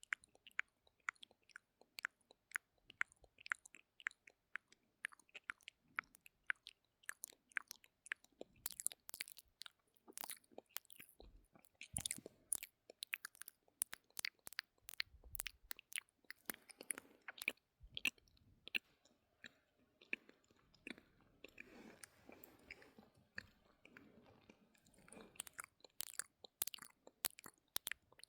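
Close-miked ASMR mouth sounds: a rapid run of wet clicks, smacks and pops from the lips and tongue, with a breathier stretch a little past the middle.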